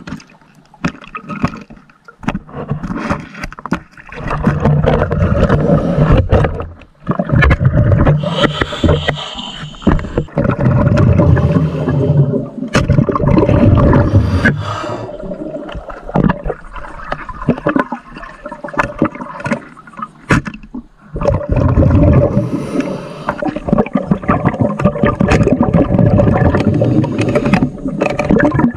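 Water sloshing and gurgling, with scrapes and knocks throughout, coming in loud spells of several seconds with brief quieter dips between them.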